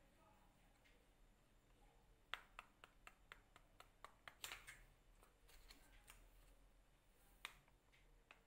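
Faint clicks and scrapes of a flat stainless steel hand grater grating cheese over a plate: a quick run of sharp ticks from about two to five seconds in, and one more near the end.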